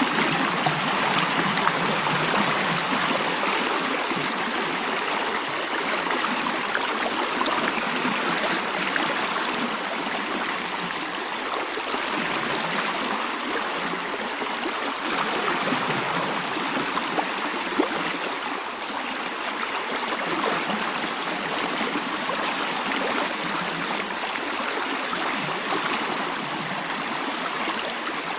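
A mountain stream flowing steadily: an even, unbroken rush of running water.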